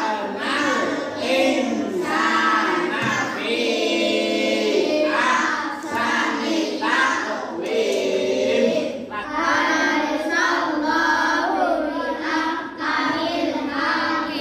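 A group of children chanting together in unison, their voices holding sung notes that change every second or so.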